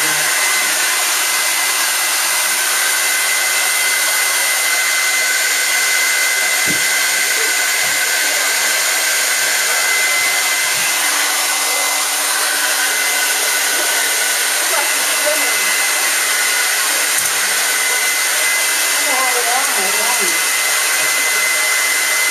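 Hair dryer running steadily: an even, loud rush of blown air with a thin high whine, drying a freshly bathed dog. A few soft knocks come in the middle.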